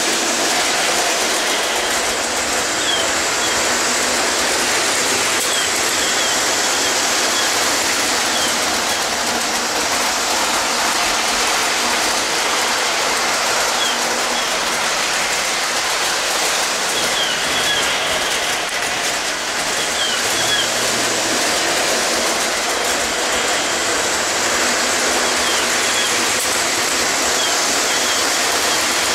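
Lionel model train running around the layout track over a steady rushing ocean-surf sound effect from the lighthouse accessory, with faint short high chirps every few seconds.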